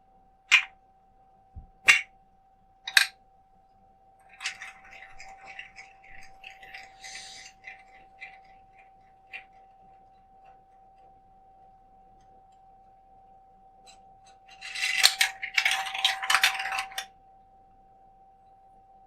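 A marble run built from plastic toy bricks: three sharp plastic clicks, then a few seconds of light rattling as a marble rolls along the track, and a louder clatter of about two seconds near the end. A faint steady hum runs underneath.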